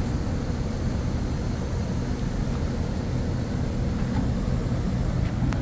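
Steady low drone of a ship's machinery running, an even hum that neither rises nor falls.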